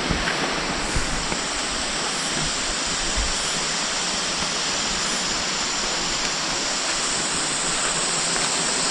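Steady rush of flowing water, an even hiss with no breaks, and a high hiss over it that grows a little stronger near the end.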